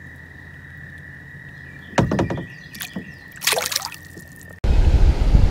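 A caught bass is released from the hand back into the water beside a kayak, with a splash about two seconds in and a second splash a second and a half later, over a steady high trill in the background. Near the end the sound cuts suddenly to loud wind noise on the microphone.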